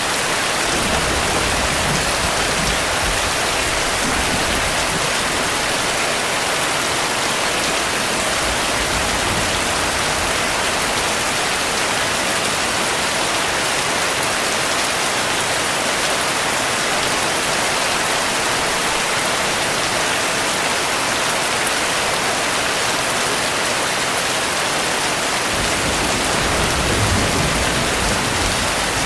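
Heavy rain falling steadily, with a low rumble of distant thunder about a second in and another starting near the end.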